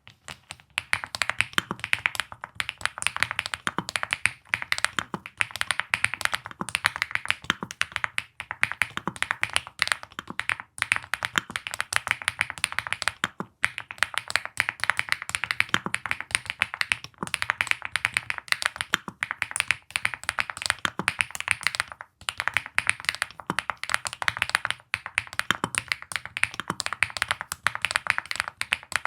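Fast, continuous typing on a Buff80 keyboard: a dense stream of key clicks with brief pauses every few seconds.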